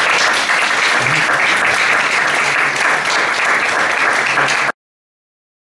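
Audience applauding steadily, then cutting off suddenly about four and a half seconds in.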